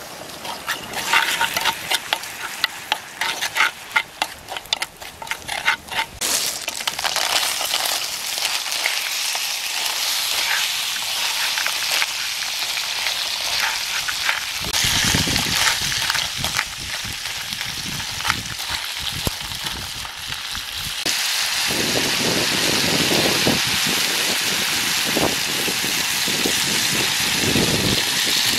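Garlic frying in hot oil, sizzling with many sharp crackling pops for the first several seconds, then settling into a steady sizzle. Later, cockles in their shells sizzle in the pan as they are stirred with a metal spoon, and the sizzle grows louder in the last third.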